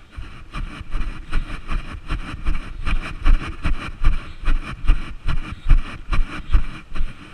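Running footsteps, even thumps at about two to three strides a second that set in about a second in, with wind rumbling on the microphone.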